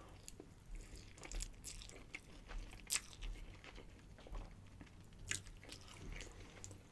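Close-miked chewing of soft pasta, with faint, irregular wet mouth clicks and smacks, a sharper one about three seconds in and another a little after five.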